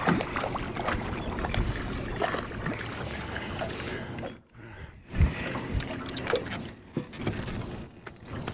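Small waves lapping against a fishing boat's hull, with wind on the microphone and scattered small knocks. One louder thump comes about five seconds in.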